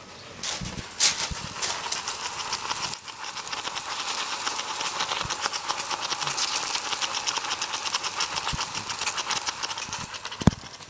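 Homemade sugar and potassium nitrate smoke bomb residue sputtering and crackling as it smoulders out in a clay pot, as a fast, steady run of small crackles that grows louder about a second in. A single low knock comes near the end.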